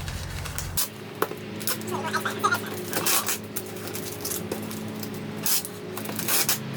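Packing tape being pulled off the roll in a series of short tearing screeches and pressed down to seal a cardboard box.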